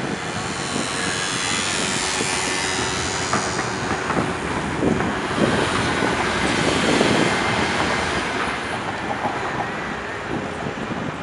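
Siemens Combino tram passing over a tram crossing, its wheels knocking and clacking over the rail junctions. The run swells to its loudest in the middle of the pass, where the clacks cluster.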